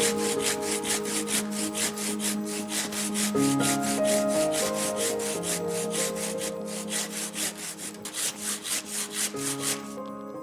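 Handsaw cutting through the stone of a wall: quick, even back-and-forth rasping strokes, about four or five a second, which stop shortly before the end.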